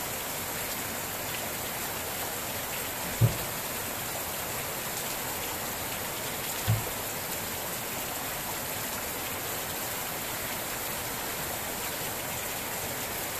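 Steady rain falling, an even hiss with no letup. Two short, dull thumps stand out above it, one about three seconds in and another about three and a half seconds later.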